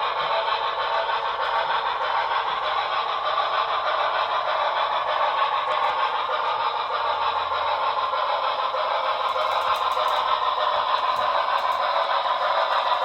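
HO-scale model train running on the layout, its onboard sound decoder giving a steady rushing locomotive sound with light rail clatter.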